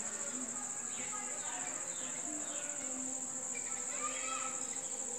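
Steady, high-pitched chorus of night insects such as crickets, running without a break.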